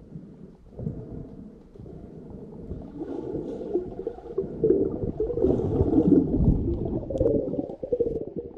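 Muffled underwater sound from a submerged camera: low rushing and churning of water as the camera moves through the water, growing louder about three seconds in.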